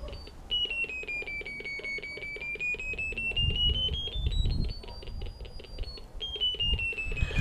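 Handheld ferret-finder locator receiver in location mode beeping rapidly, its pitch sliding down, then up, then jumping and falling again as it is moved relative to the collar transmitter: a higher tone means the transmitter is closer. A low rumble of handling noise comes in midway.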